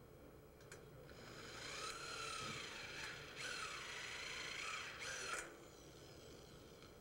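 Corded electric drill driving a screw through a steel bracket into a steel frame tube. The motor whine shifts in pitch under load, runs in two bursts with a brief pause between them, and stops abruptly a little after five seconds in.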